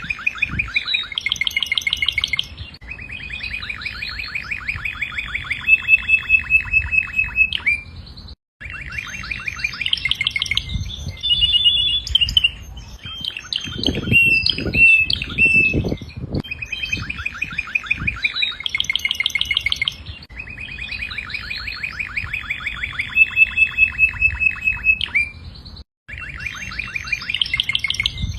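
Domestic canary singing a long song of rapid trills and rolls, phrase after phrase, with only very brief pauses.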